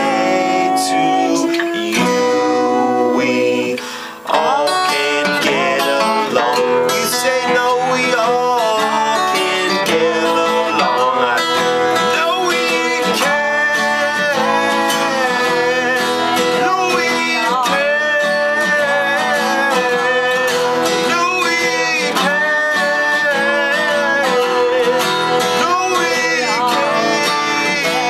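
Acoustic folk music led by guitar, with a melody line that bends in pitch over it. The music drops away briefly about four seconds in, then carries on.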